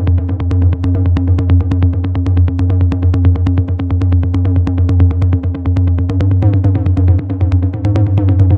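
Techno pattern from a Roland TR-8 drum machine, run through an Allen & Heath Xone:PX5 DJ mixer's effects: fast, even ticks over a steady low bass drone.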